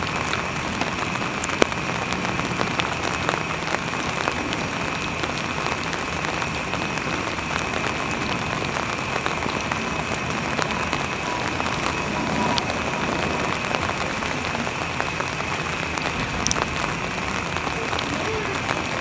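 Steady rain falling, with the scattered ticks of single drops hitting hard surfaces. A steady high-pitched tone runs under it.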